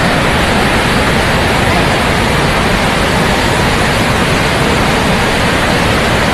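A swollen stream in flood rushing past, a loud, steady noise of fast-moving floodwater. The river is close to overflowing its banks after heavy rain.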